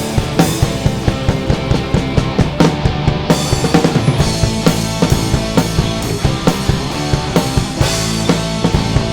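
Rock music with a full drum kit driving a steady beat of bass drum and snare under sustained bass and guitar chords.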